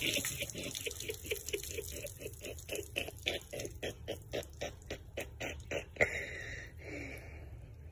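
A person's quick, breathy vocal pulses, about four a second and slowly speeding up, then one sharper, louder breath about six seconds in.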